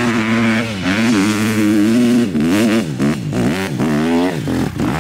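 Dirt bike engine revving up and down as the bike climbs a hill, with a quick run of throttle blips, pitch rising and dropping several times, in the second half.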